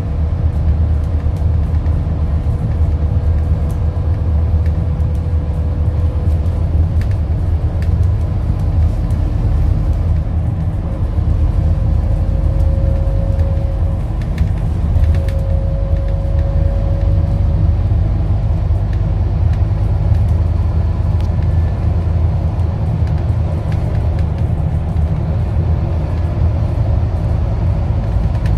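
Scania N230UD double-decker bus running, a steady low rumble from its engine and drivetrain, with a faint whine that comes and goes.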